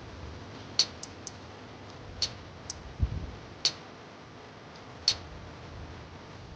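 Scattered light clicks and ticks, about seven in all, with one soft low thump about three seconds in, from handling the oil bottle and filler while topping up a generator's crankcase oil.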